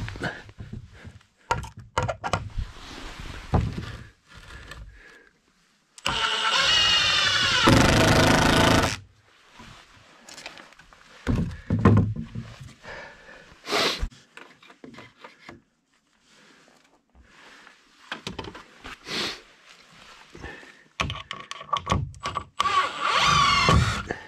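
Cordless impact driver driving screws into wooden floor joists, in bursts: a long run of about three seconds a quarter of the way in, shorter runs around the middle and another near the end, its pitch rising and falling as it spins up and slows. Knocks and scraping of wood and the tool being handled in between.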